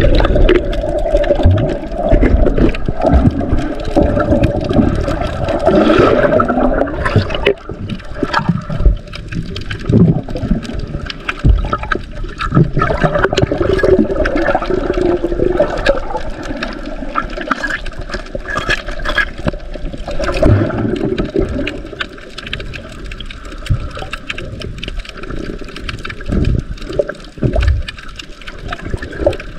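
Muffled water gurgling and sloshing around a submerged camera as it moves underwater, with a few dull low thumps.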